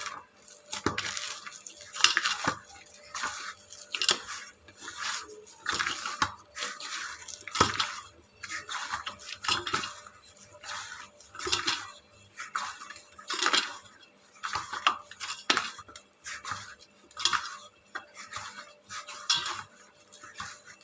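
Semolina (rava) dough being kneaded by hand: rhythmic pressing strokes, a little more than one a second, as the dough is worked until it turns soft.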